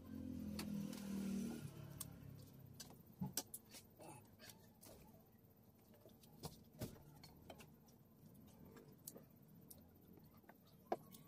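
Hand-eating sounds at a plate: fingers picking at fried chicken and dried fish, with scattered soft clicks and taps against the plate.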